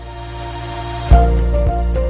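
Electronic logo-intro music: a hissing swell builds, then about a second in a heavy bass hit drops into a steady beat with clicks and short synth notes.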